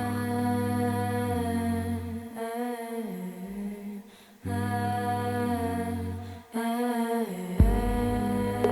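Music: a wordless hummed vocal with long held, gliding notes over sustained tones, breaking off briefly twice. A single sharp thump near the end.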